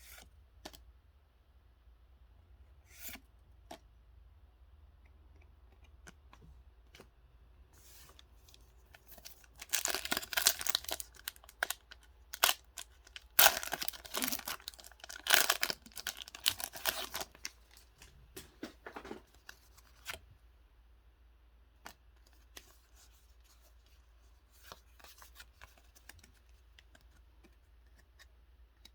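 Pokémon trading card packaging being torn open by hand: a run of loud tearing and crinkling from about ten seconds in, lasting some seven seconds, between faint clicks and rustles of cards and packaging being handled.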